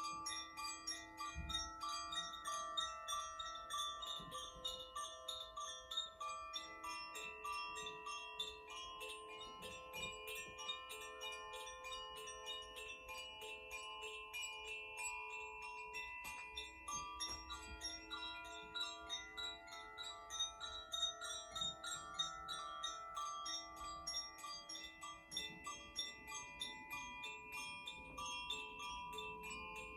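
Koshi chimes rung softly and continuously: a dense, rapid tinkling of small strikes over many overlapping, lingering tones.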